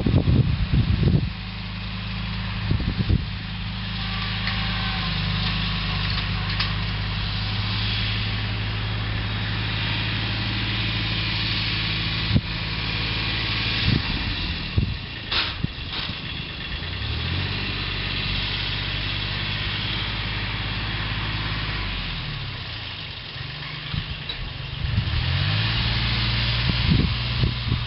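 Yanmar YM169 compact tractor's diesel engine running steadily under working load. Its speed dips and picks up again a couple of times in the second half, with a few sharp clanks from the machinery along the way.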